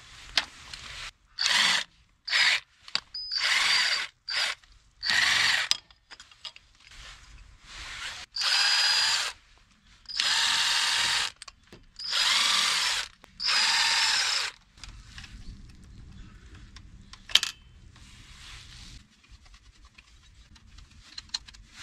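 Cordless power driver whirring in about ten short spurts of a half to one second each, backing out the screws of a motorcycle's carburettor cover, followed by quieter handling noise with one sharp click.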